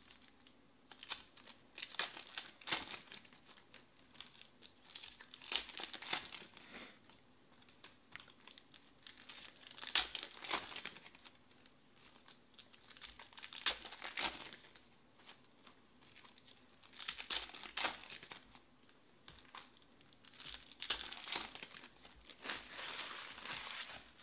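Foil wrappers of Panini Select baseball card packs crinkling and tearing as the packs are opened and handled, in repeated bursts every few seconds.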